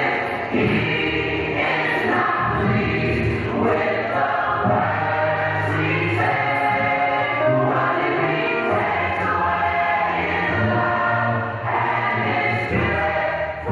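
Gospel choir singing, voices sustained over a full accompaniment.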